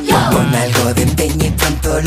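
Upbeat electronic dance-pop music for children with a steady, driving beat and bass.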